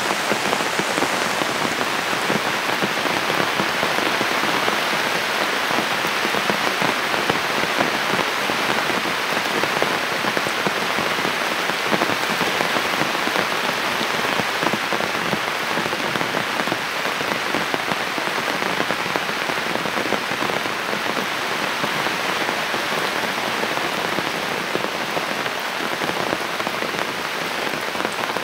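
Steady heavy rain falling, an even hiss of countless drops that keeps the same level throughout.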